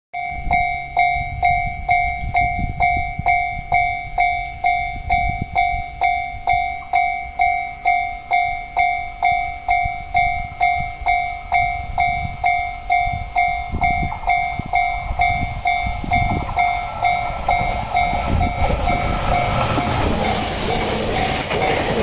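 Railway level-crossing warning bell ringing in evenly spaced strikes, just under two a second. About twenty seconds in, the rushing, rumbling noise of a four-car SAT721 + E721-500 series electric train passing close by rises under the still-ringing bell.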